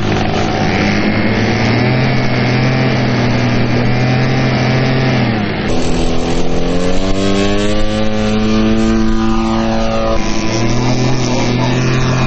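Engine of a large RC scale Tiger Moth biplane model running steadily, then, after a cut about six seconds in, opening up with a rising pitch as the throttle is advanced for take-off, holding high, and easing back about ten seconds in.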